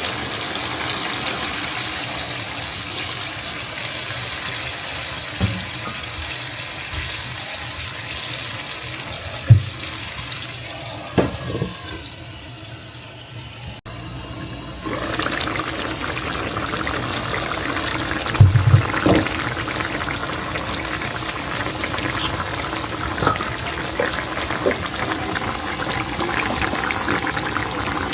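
Water running from a kitchen tap, fading away and then running again about halfway through, with several sharp knocks of dishes or utensils.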